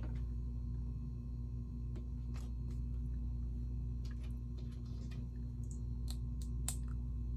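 Plastic Lego pieces clicking and tapping, a scattered run of light clicks as parts are handled and pressed together, over a steady low hum.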